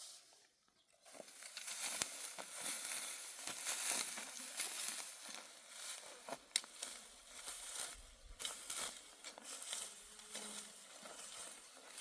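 Dry barley stalks rustling and crackling as they are handled, with scattered sharp snaps; the rustling starts about a second in.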